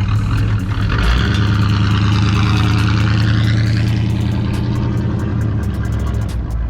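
A motor vehicle's engine running, a loud steady low drone throughout.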